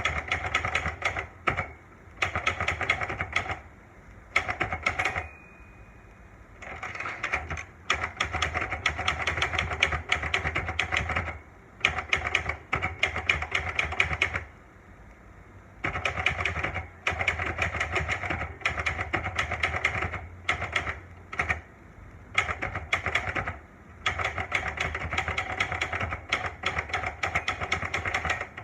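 Olivetti Lettera 92 manual portable typewriter being typed on: quick runs of key and typebar strikes, broken by short pauses. There is one short ring about five seconds in.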